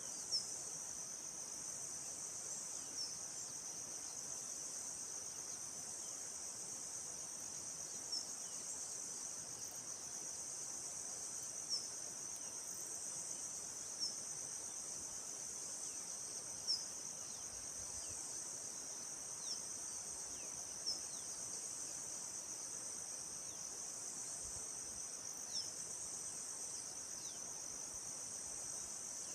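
A steady, high-pitched chorus of forest insects shrilling, with short falling bird chirps every two to three seconds.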